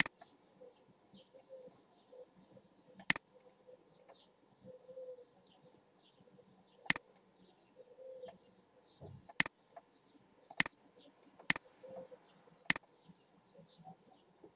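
About six sharp computer mouse clicks, spaced irregularly and coming closer together in the second half, over faint bird chirping in the background.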